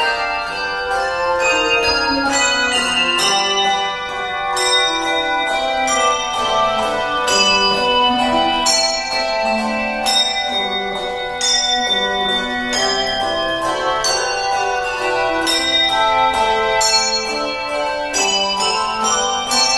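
Handbell choir playing a piece: many handbells struck in quick succession and chords, their notes ringing on and overlapping, with a moving lower line under higher chiming notes.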